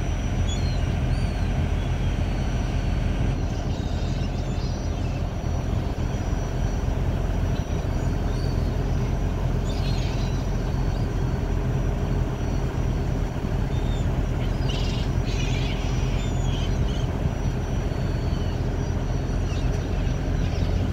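Steady low drone of a car ferry under way, with short high calls of gulls flying around the ship heard now and then.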